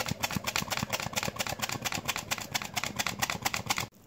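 Flour being sifted into cake batter: a fast, even run of ticks, about ten a second, from the sifter, cutting off suddenly near the end.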